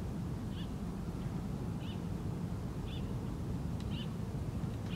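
Short, faint bird chirps about once a second over a steady low outdoor rumble. At the very end comes a single sharp thump: a soccer ball being kicked.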